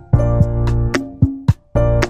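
Background music with a steady beat, pitched melody notes and low bass notes.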